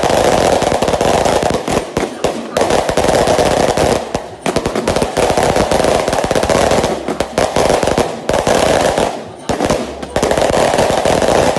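Firecrackers going off in long rapid strings, a dense continuous crackle of bangs with a few brief lulls.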